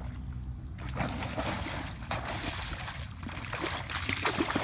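A hooked snakehead thrashing and splashing at the water's surface as it is pulled in to the bank. The splashes come in irregular bursts and grow louder near the end.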